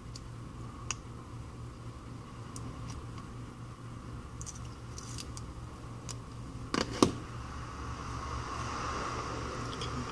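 Small clicks and taps of tools and phone parts being handled during a phone repair, with two sharp, louder clicks close together about seven seconds in, over a steady low hum.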